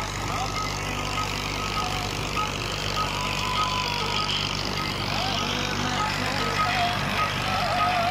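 Fiat 480 tractor's three-cylinder diesel engine running steadily under load while pulling a rotavator through dry soil. A faint short high note repeats about three times a second over the engine.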